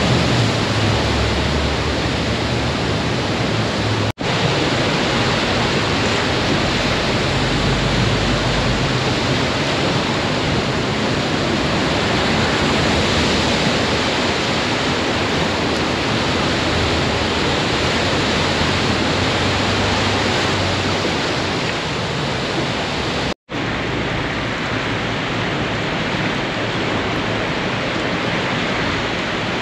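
Floodwater rushing and splashing as vehicles drive through a deeply flooded street: a loud, steady wash of water noise. A low engine rumble from a passing box truck lies under it for the first several seconds. The sound cuts out abruptly twice, about four seconds in and about twenty-three seconds in.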